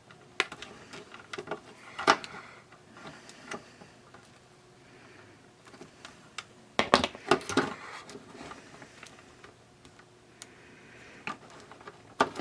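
Scattered clicks and knocks of hands and a tool working on a small plastic radio to get its power transformer out, with a louder cluster of knocks about seven seconds in. A faint steady hum sits underneath.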